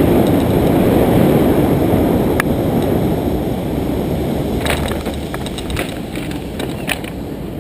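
Wind rushing over the camera microphone of a paraglider on final approach, easing off over the second half. From about five seconds in come scattered clicks and rustles as the pilot touches down and the wing and its lines come down.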